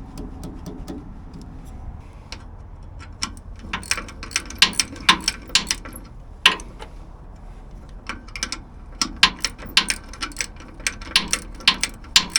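Irregular sharp metallic clicks and clinks, in short clusters, as metal parts are handled.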